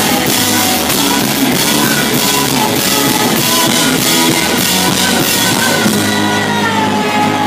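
Live rock band playing loud: drum kit and a woman singing into a microphone, heard from the front row. The cymbals and drums drop away about six seconds in, leaving held notes ringing.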